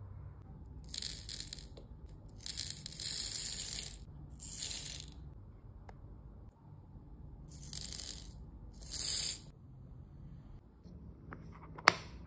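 Small clear beads rattling and sliding inside a clear test tube as it is tipped, in five short rushes of about a second each. Near the end comes a single sharp click, the loudest sound.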